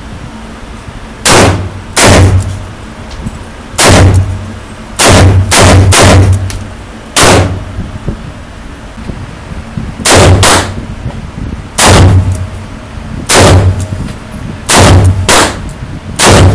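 Handgun shots at a shooting range: about fourteen loud, sharp reports fired at an uneven pace, some in quick pairs less than half a second apart, each with a short echo.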